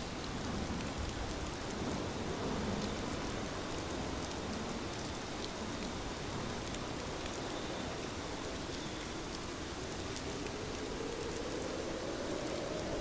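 Steady water sound with many fine, drop-like ticks over an even hiss, and a low gurgling band that drifts slowly in pitch.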